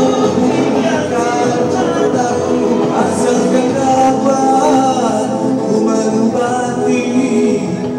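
Men singing karaoke into microphones over a backing track, amplified through PA speakers.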